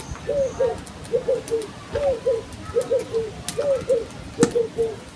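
A dove cooing over and over, short rising-and-falling coos in groups of two or three about once a second, with a few faint clicks.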